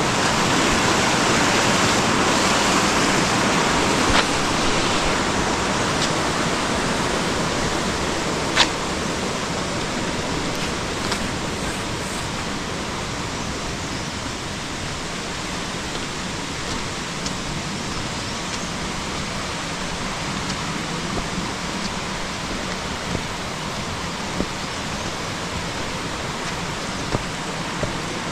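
Mountain stream rushing over rocks, a steady rush that slowly fades as the listener moves away from it. A few sharp clicks stand out over it.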